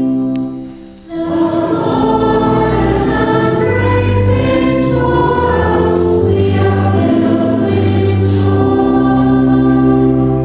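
Many voices singing a church hymn together over sustained keyboard accompaniment, coming in after a brief pause about a second in.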